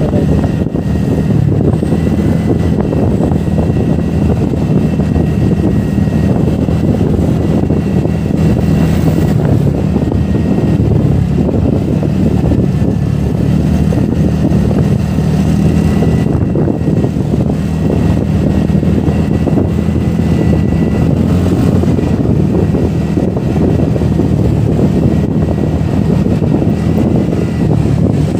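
Steady wind rush on the microphone over a TVS NTorq 125 scooter's single-cylinder engine running at an even cruising speed.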